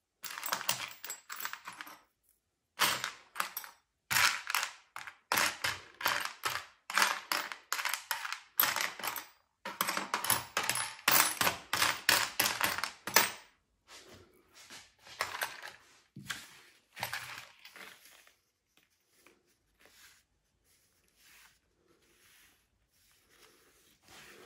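Small metal screws, bolts, washers and allen keys from a flat-pack furniture hardware kit clinking and rattling as fingers rummage through them in a small tray. The rattling is dense for the first half and then thins to faint scattered ticks.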